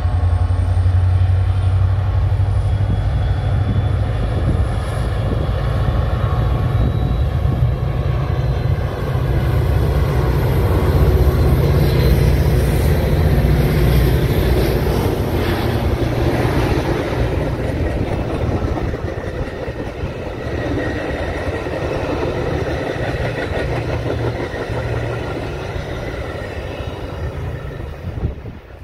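Metra diesel locomotives and bilevel coaches passing close by: a heavy diesel engine rumble, loudest in the first half, gives way to the running noise of the coaches. It fades as the train moves off and drops away near the end.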